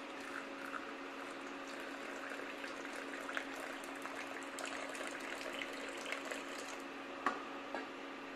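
Water poured in a steady stream into a glass mug holding a tea bag: a faint trickling and bubbling as the mug fills, over a steady low hum.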